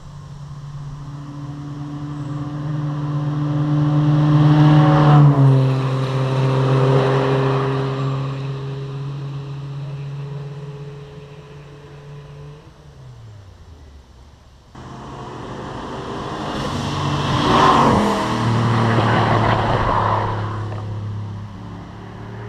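Two Triumph sports cars running hard up a hill climb course, each approaching under power and passing close by, its engine note dropping in pitch as it goes past. The first passes about five seconds in and fades away; the second comes in abruptly and passes about seventeen seconds in.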